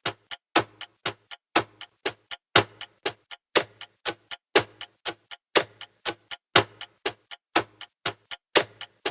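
Clock ticking steadily. A louder tick comes about once a second, with several lighter ticks between.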